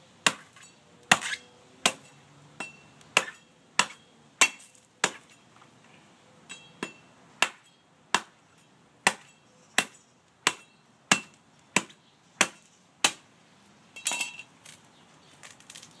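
Machete chopping the husk off the top of a green coconut: a steady run of sharp blade strikes, about one every two-thirds of a second, with a short pause about five seconds in and a quicker clattering flurry near the end.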